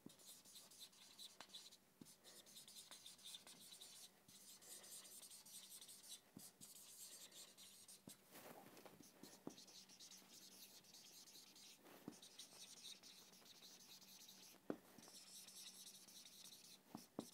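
Faint scratchy squeak of a marker pen writing on a whiteboard, in short strokes with brief pauses between words, and a few light clicks.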